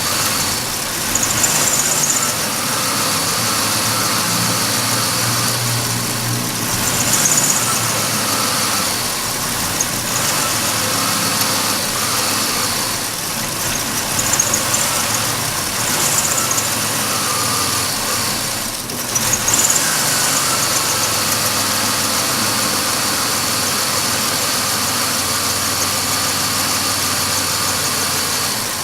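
A 2005 Chevy Impala's 3.4-litre V6 idling steadily, with small rises and falls in level.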